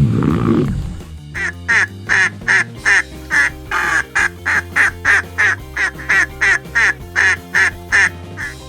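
A duck quacking over and over in a fast, even run, about two to three quacks a second, starting about a second in. The end of a deep roar fades out just before it, and soft background music runs underneath.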